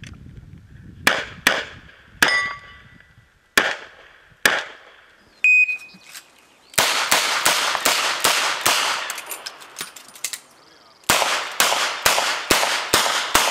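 Revolver gunfire during a practical-shooting stage: several spaced shots in the first few seconds, then two fast strings of shots, the first about halfway through and the second near the end. A short metallic ring follows some of the shots, typical of hit steel targets.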